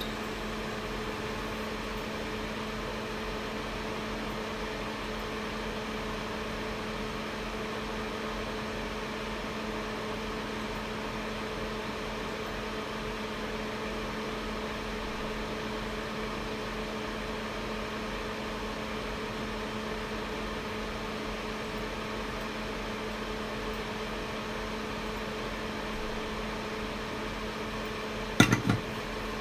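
Steady electric hum of a small fan motor in the bench equipment running, a constant low tone. A couple of sharp knocks come near the end.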